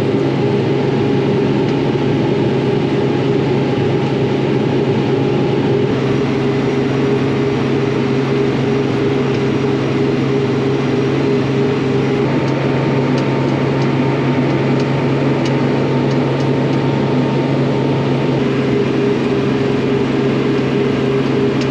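Crop sprayer's engine running steadily at a constant speed, a continuous low hum with a steady pitch.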